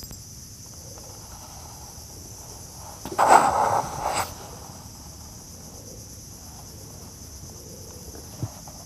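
Steady high-pitched insect chorus from the mangroves. About three seconds in, a loud rustling scrape of about a second as the camera is handled and rubbed against clothing.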